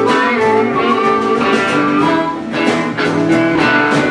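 Harmonica and electric guitar playing together: a cupped harmonica carrying the sustained melody notes over a strummed electric guitar, the instrumental lead-in to a folk song before the vocal starts.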